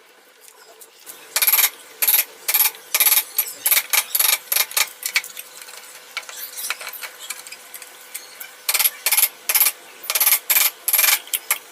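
A hand tool working wood in quick, short scraping strokes, in two runs with a pause between them.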